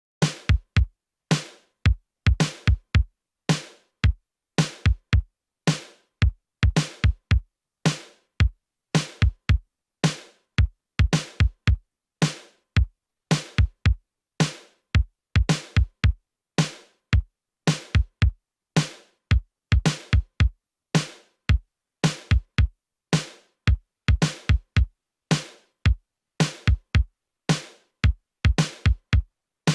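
Programmed synthwave drum loop from vintage drum-machine samples such as the LinnDrum and Roland TR-808, playing alone in a steady repeating pattern. Deep kick drums whose low tails fall in pitch alternate with crisp snare hits.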